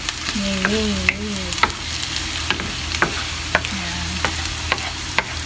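Chopped onion sizzling in olive oil in a nonstick frying pan while a wooden spoon stirs it, knocking and scraping against the pan about twice a second.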